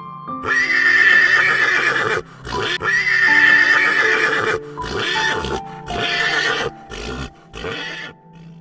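Horse whinnying: two long whinnies, then four shorter calls, over background piano music.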